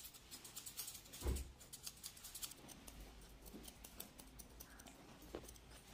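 Grooming scissors snipping through a Bichon Frise's fluffy coat in a quick run of faint, crisp clicks. A soft thump about a second in.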